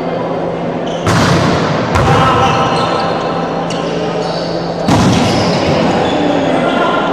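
Volleyball being played: a ball sharply struck by hands and forearms three times, about one, two and five seconds in, with players' voices calling between the hits.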